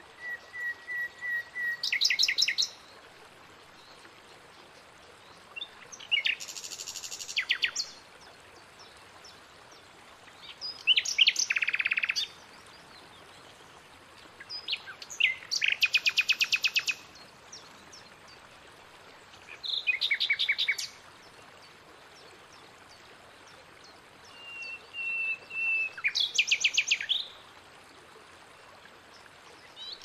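A songbird singing: a phrase of whistled notes and fast trills, about two seconds long, repeated every four or five seconds, over a faint steady rush of running water.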